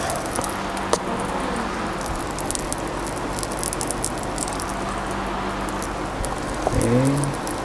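Waffle batter sizzling on the hot plates of an electric waffle maker as it is spooned in: a steady hiss with many small crackles.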